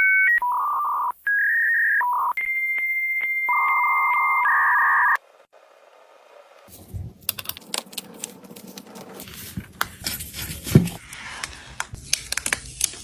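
A run of loud, steady electronic beep tones stepping between a few pitches, which cuts off suddenly about five seconds in. After a short pause come irregular light clicks and taps of small hard parts being handled, typical of phone repair work.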